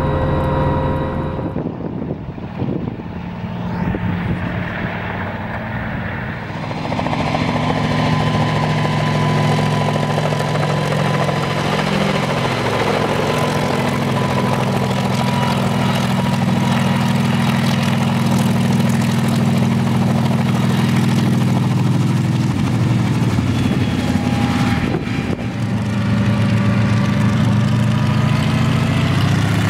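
Kamov Ka-26 coaxial helicopter running: its two Vedeneyev M14V-26 nine-cylinder radial engines and its rotors make a steady, deep, many-layered drone. The sound shifts sharply a few times, first as the helicopter flies low past, then near the end as it runs on the ground with its rotors turning.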